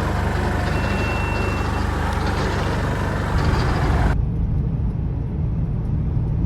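A motor running steadily under a loud hiss; the hiss cuts off abruptly about four seconds in, leaving the low engine rumble.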